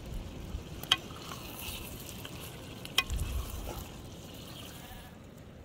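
Meat and tomato stew sizzling in a large metal pan over a wood fire as a metal ladle stirs it, with two sharp clicks of the ladle against the pan, about one and three seconds in.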